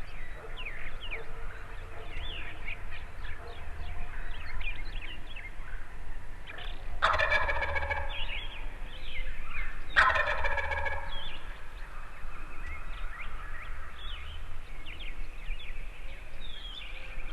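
A wild turkey gobbler gobbling twice, about three seconds apart, each gobble a loud rattling call about a second long. Smaller songbirds chirp throughout.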